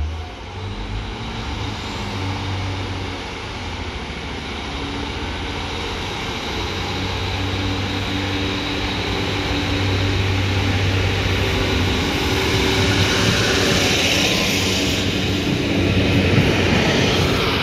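A diesel train's engine runs steadily and slowly grows louder, with a hiss building up near the end.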